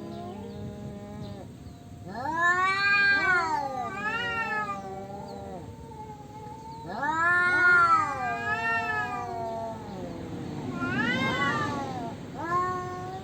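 Two male cats caterwauling at each other in a territorial standoff: long, drawn-out yowls that rise and fall in pitch and overlap, loudest in two swells about two and seven seconds in.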